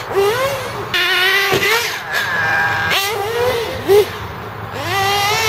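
1:8 scale nitro buggy's small two-stroke glow engine buzzing at high revs, its pitch rising and falling again and again as the throttle is blipped and released. Its loudness peaks once, about four seconds in.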